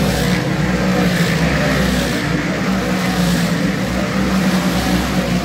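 Dirt-track race car engines running hard together on the oval, a loud, steady drone.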